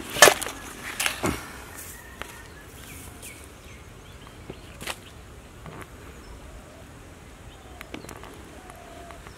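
Crisp banana leaves rustling and a few sharp knocks in the first second or so, as a whole roasted chicken is handled out of its leaf wrapping into a stainless-steel bowl. After that, only faint outdoor background with a few bird chirps.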